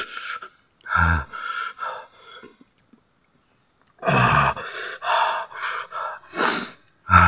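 A man gasping and breathing hard through his mouth from the burn of the hot chili peppers he is eating. A voiced "hah" comes about a second in and again at about four seconds, each followed by hissing breaths.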